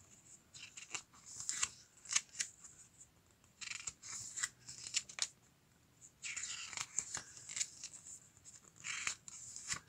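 Pages of a small paper booklet being turned by hand: short papery rustles and swishes in several bunches, with brief pauses between page turns.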